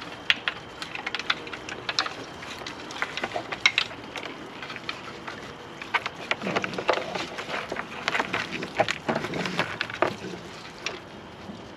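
Raccoons scrabbling and feeding: an irregular run of sharp clicks, scratches and crunches as their claws scrape on a hanging cardboard tube and they pick at scattered food. The scraping gets busier about halfway through, when the tube with a raccoon inside is pushed.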